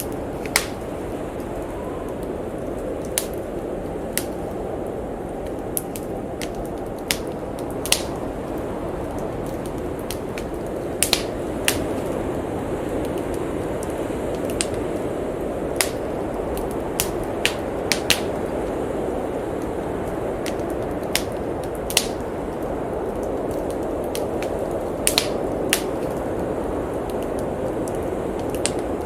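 Wood fire crackling, with irregular sharp pops every second or so, over the steady rushing of a blizzard wind.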